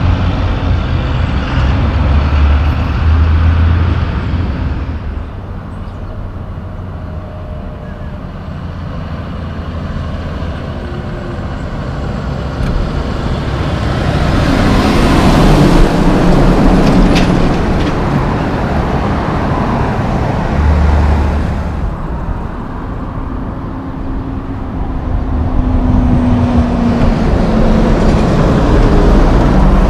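Heavy diesel logging trucks driving past on the road, with other traffic. The engine and tyre noise swells and fades as each truck passes and is loudest about halfway through as a loaded truck goes by close. Near the end a truck's engine note holds steady as it pulls through a turn.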